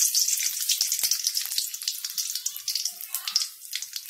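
Whole spices (cinnamon, cardamom, bay leaf) sizzling in hot oil in a steel kadai, with many small crackling pops. The sizzle is loudest at first and dies down gradually.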